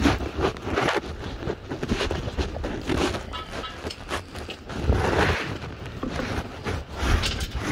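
Wind buffeting the microphone of a moving motorcycle, in uneven gusts over a steady low road-and-engine rumble.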